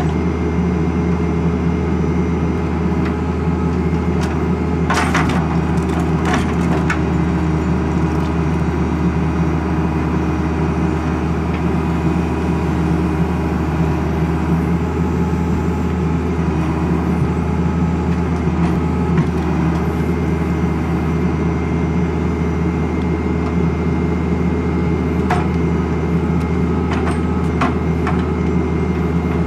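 Valtra 8050 forestry tractor's SISU 620DS 6.6-litre six-cylinder diesel running steadily at constant revs while the trailer crane loads logs. A few sharp wooden knocks from logs handled by the crane's grapple come about five and six seconds in, and again near the end.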